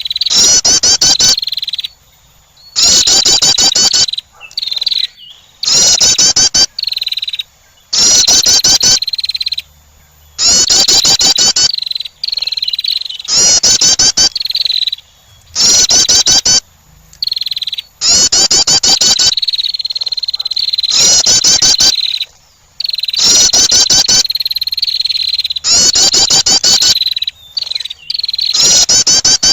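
Female wren's call played as a lure: loud, buzzy, rapid trills of under a second, repeating about every two seconds.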